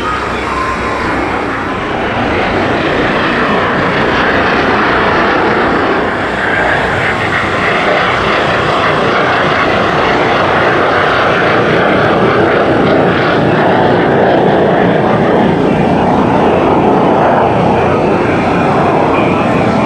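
Snowbirds' CT-114 Tutor jet engines running in flight, a continuous engine roar that slowly grows louder as the aircraft approach.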